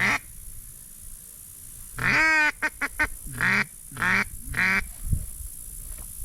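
A series of loud duck quacks: one at the start, a longer drawn-out quack about two seconds in followed by a quick stutter of short notes, then three more quacks in a row.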